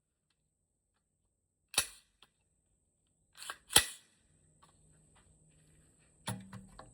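AR-15 rifle shots: a sharp report about two seconds in, a quieter crack and then the loudest report about two seconds later, with another sharper knock near the end.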